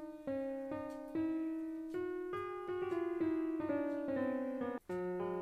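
Background piano music: a slow run of held notes, a new one about every half second, with a brief dropout in the sound a little before the end.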